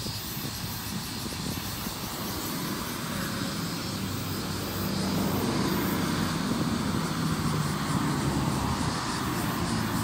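Cicadas buzzing steadily in a high hiss, under a low rumble that grows louder about halfway through.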